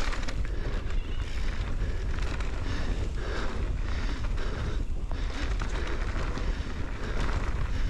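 Ibis Oso e-mountain bike running fast down a dirt trail, its knobby tyres rolling over dirt and stones. Heavy wind rumble on the microphone.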